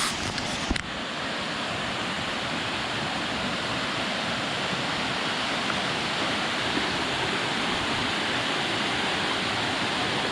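Steady rush of falling water from a jungle waterfall, with a brief knock under a second in.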